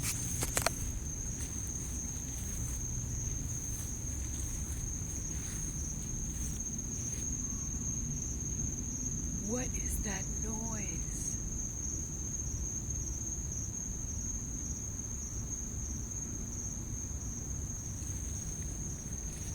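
Crickets trilling in one steady, high, unbroken chorus, over a low background hum of night air.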